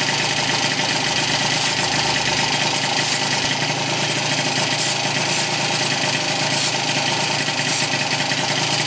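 Freshly rebuilt 70cc Yamaha Zuma two-stroke engine (vertical Minarelli with Polini Corsa big-bore kit) idling steadily through a Yasuni R expansion-chamber exhaust, on its first run after the build.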